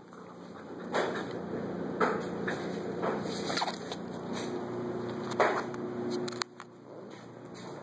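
Scuffling and rustling of a dog and cat play-fighting, in several short bursts over a steady low background hum.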